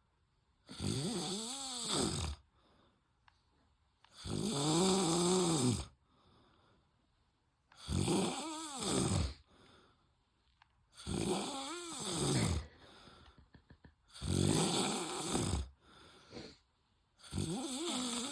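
A man snoring in his sleep: six loud snores about every three and a half seconds, each rising and then falling in pitch, with quieter breaths between.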